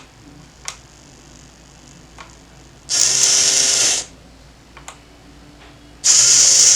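Arduino-controlled hobby servo motor driving a door lock's bolt, running in two bursts of about a second each: one about three seconds in, one near the end. A few faint clicks come between them.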